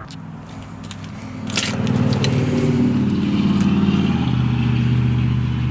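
A motor vehicle's engine running, growing louder about a second and a half in, then settling to a lower, steady pitch a little after four seconds.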